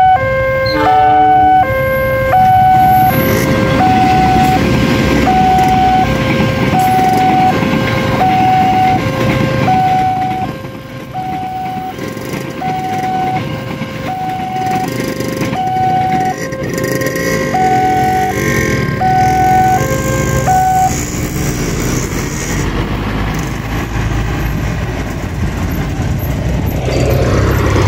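Railway level-crossing alarm sounding its shrill two-tone warning, high and low tones alternating about once a second, over a steady rushing noise. The alarm stops about three quarters of the way through, and a vehicle engine comes up near the end.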